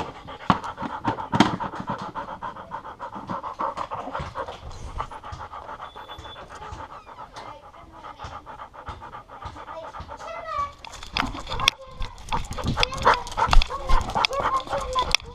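A dog panting rapidly and close up, heard through its own collar-mounted camera, with scattered knocks growing louder in the last few seconds.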